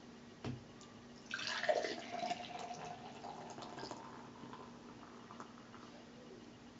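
Pale ale being poured from an aluminium can straight down into a glass. After a short knock about half a second in, the splashing pour starts a little over a second in and gradually fades as the glass fills and foams.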